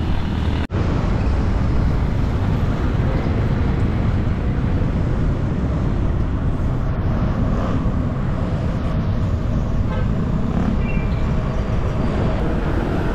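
Wind rushing over the microphone and road traffic noise while riding a bicycle along town streets, with a short vehicle horn toot near the end.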